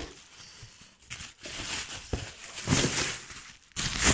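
Plastic bubble wrap crinkling and rustling in irregular bursts as a tool wrapped in it is handled and unwrapped.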